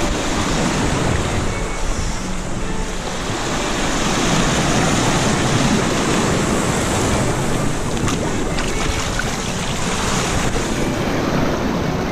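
Sea surf surging and washing over rocks, with whitewater churning, and wind buffeting the microphone.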